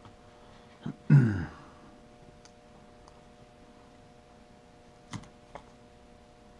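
Wire strippers clicking and snipping as they cut back and strip a heavy rubber-jacketed power cord, a few sharp clicks spread out. About a second in comes a short, loud sound that falls in pitch, the loudest thing heard.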